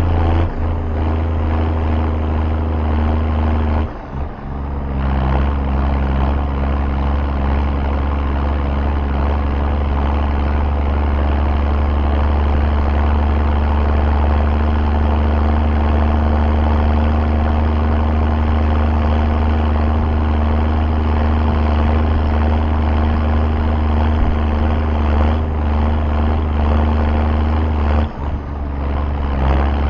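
MB Trac 1300's six-cylinder diesel engine running steadily under load while hauling a hay trailer, with a deep exhaust note. The sound dips briefly twice, about four seconds in and near the end, with the engine note shifting after the first dip.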